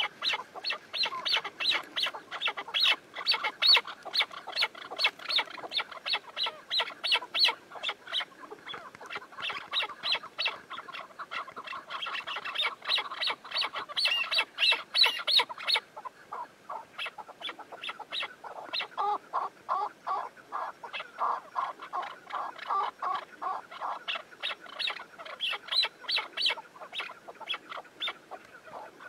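Several chukar partridges calling, a fast run of short repeated clucking 'chuk' notes, several a second, with birds overlapping. The higher-pitched notes give way to deeper, lower notes about two-thirds of the way through.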